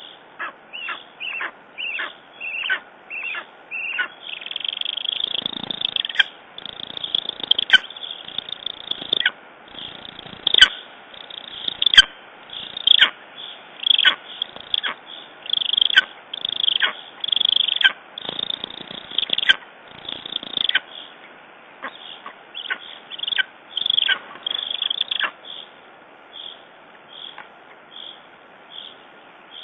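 Lesser spotted eagle calling at the nest: a long series of short, high calls, each falling in pitch. They come about two a second at first, then settle to about one a second, and grow fainter near the end.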